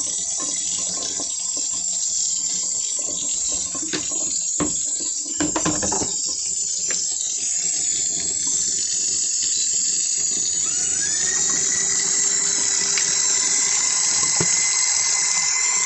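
Water being poured or run into the tub of a small portable washing machine, a steady rushing, with a few knocks about four to six seconds in.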